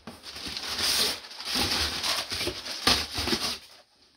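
Packaging rustling and crinkling as items are handled, in uneven bursts with a few soft knocks, stopping just before the end.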